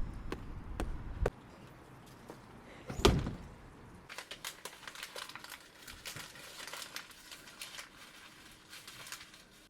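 Crinkling and crackling from something being crumpled or handled, a run of fine clicks lasting several seconds, preceded by a single loud thump about three seconds in.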